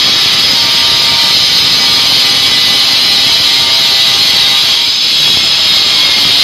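Handheld electric angle grinder running steadily against the edge of a granite countertop: a loud, even, high-pitched grinding hiss with a faint whine under it.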